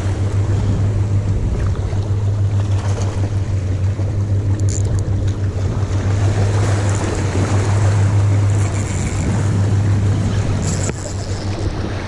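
Sea waves washing against jetty rocks under a steady low hum of wind buffeting the microphone.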